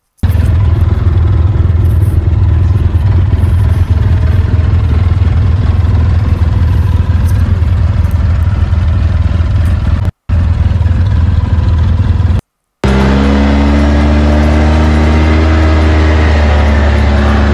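Off-road buggy engine running while driving, heard from on board as a loud low rumble. The sound cuts out briefly twice, then settles into a steady engine drone with several held tones.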